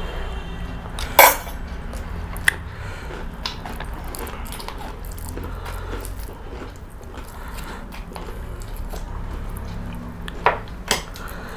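Eating at the table: a few sharp clinks of tableware and soft chewing over a low steady hum, with the loudest clink about a second in and two more near the end.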